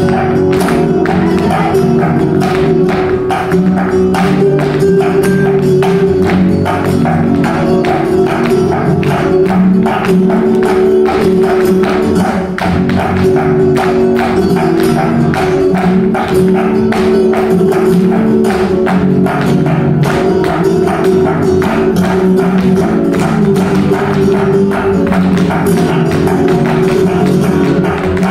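Farruca flamenco music with the dancers' fast footwork (zapateado): a dense, rapid clatter of shoe strikes on the stage floor running over the held tones of the music.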